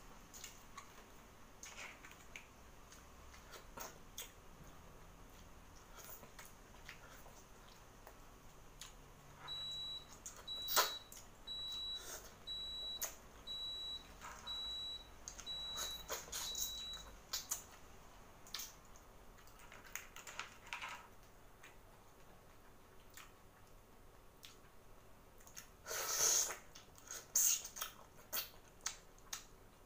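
Close-up eating sounds of boiled seafood picked apart by hand: scattered clicks of shell and wet smacking and sucking at the mouth and fingers, loudest near the end. About a third of the way in, an electronic beep repeats about once a second, some eight times.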